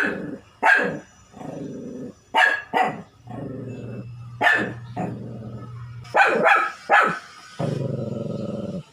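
A shih tzu barking: about seven sharp barks, some in quick pairs near the middle and end, with lower, drawn-out growling between them.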